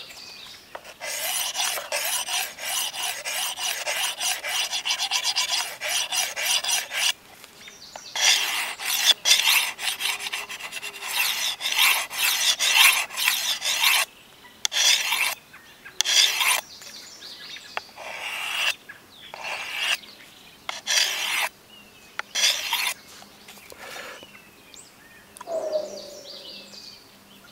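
Steel parang blade being honed on the ceramic of a Work Sharp field sharpener, the fine final stage that brings the edge to keenness. It starts as a steady run of quick scraping strokes, then goes to separate strokes about a second apart that thin out near the end.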